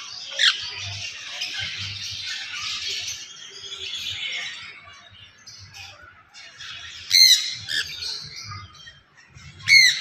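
Sun conures squawking: a dense wash of chattering calls through the first four seconds or so, with single loud, harsh screeches about half a second in, at about seven seconds, and near the end.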